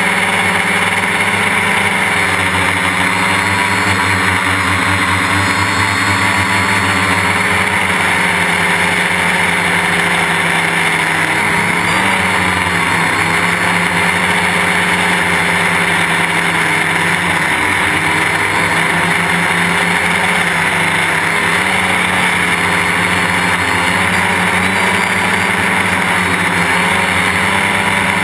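Quadcopter's four brushless electric motors and propellers buzzing steadily in flight, heard close up from a camera mounted on the frame. The pitch wavers slightly up and down with throttle changes.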